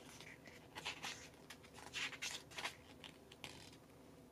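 Faint rustling and crinkling of a photobook's paper pages as hands hold and shift them, with a few short crackles about a second in and again around two seconds in.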